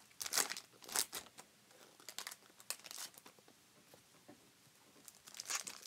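Trading cards being handled and flicked through by gloved hands: short papery rustles and scrapes, loudest about half a second and a second in and again near the end, with small ticks between.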